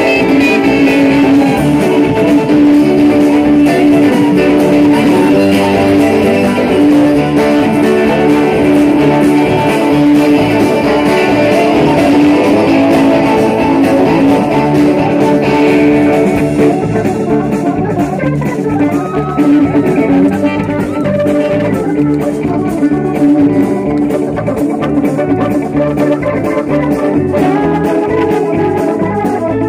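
Live band playing, with guitars to the fore over bass and drums. The sound turns duller about halfway through as the high end drops away.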